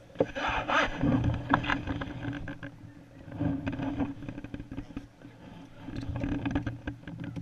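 Dry grass of a layout blind's cover rustling and scraping close to the microphone as the hunter shifts inside the blind, in crackling bursts, loudest in the first two seconds.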